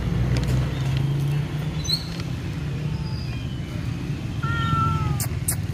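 Street cats meowing a few times over a steady low rumble.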